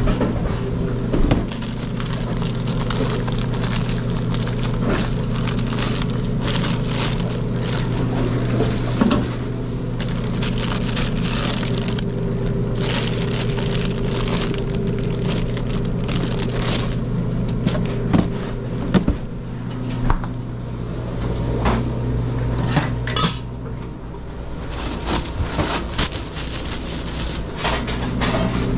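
Steady low hum of food-trailer kitchen equipment under a series of scattered knocks and clatter from a stainless fridge door and utensils, with a plastic bag of sausages crinkling as it is handled.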